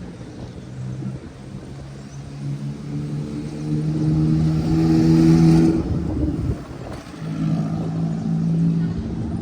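A motor vehicle's engine running with a steady hum, growing louder to a peak about five and a half seconds in, dropping away, then coming back more faintly near the end.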